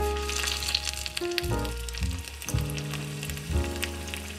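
Vegetables deep-frying in a miniature ceramic pot of hot oil, the oil sizzling and crackling steadily. Background music with bass notes plays throughout.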